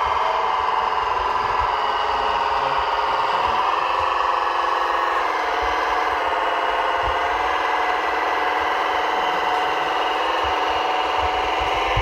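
Radio-controlled model trucks running: a steady whine from their motors and gearboxes, wavering slightly in pitch. Dull low thumps come underneath, more of them near the end.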